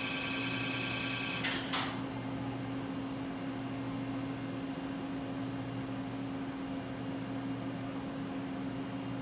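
Excimer laser pulsing as a fast, high-pitched buzz that cuts off about a second and a half in, followed by a single click. After that only a steady low equipment hum remains.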